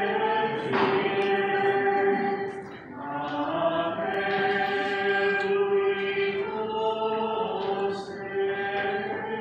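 Voices singing a slow hymn in a church, in long held notes that shift to a new note every few seconds.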